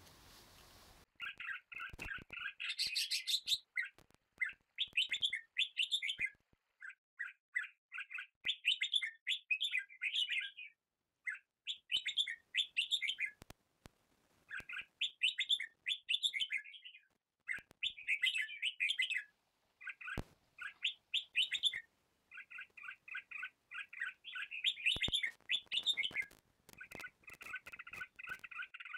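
A songbird singing: repeated phrases of rapid chirps, each lasting a second or two with short pauses between them, starting about a second in.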